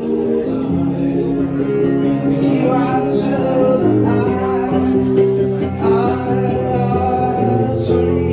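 Background music: a song with instruments and a voice, starting right after a brief break.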